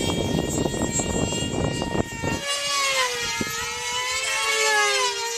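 Two small two-stroke control-line combat model engines running at high speed, a buzzing whine whose pitch rises and falls as the models circle. About halfway through, the rough, noisy start clears into two distinct whines at slightly different pitches.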